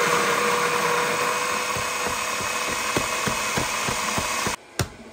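Baratza Sette 30 burr coffee grinder running at a coarse setting, a steady motor whine, with a quick series of sharp knocks through its last couple of seconds. It cuts off suddenly near the end, followed by a single click.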